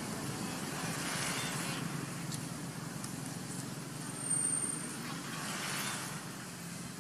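Steady low rumbling outdoor background noise, like distant road traffic, with one brief high thin whistle about four seconds in.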